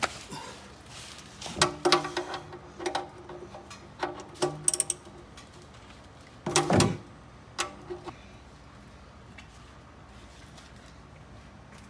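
Wrench clinking and knocking at a stuck oil drain plug as someone tries to crack it loose: a few clusters of metallic clicks and knocks, the heaviest a thud about seven seconds in.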